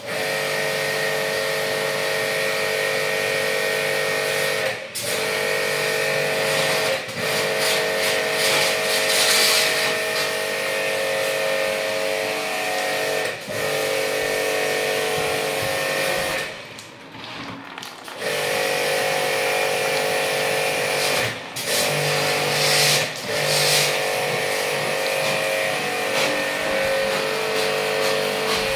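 Electric jet pump (portable pressure washer) running with a steady motor hum and the hiss of its water jet, used for washing a split air conditioner's indoor unit. It stops briefly several times, once for over a second about 17 seconds in, then starts again.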